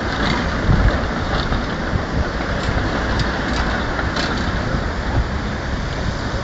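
Steady rushing noise of wind buffeting the microphone, mixed with the hum of city traffic.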